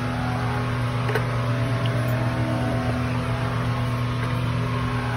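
A steady low mechanical hum, as of a motor or fan running, with a faint click about a second in.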